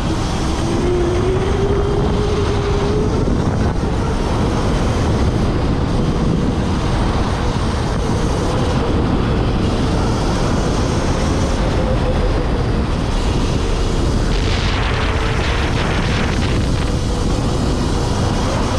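Onboard sound of the UC Davis FE11 Formula SAE electric race car at speed: heavy wind noise on the microphone, with the electric drive's thin whine dipping and rising in pitch as the car slows and speeds up through the cones. A brief louder hiss comes about fifteen seconds in.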